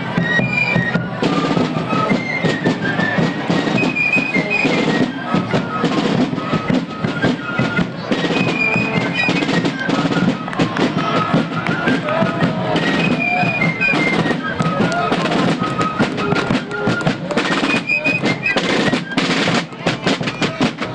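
Colonial-style fife and drum corps playing a march: fifes carry a quick, high melody over rapid rope-tension snare drumming and bass drum beats.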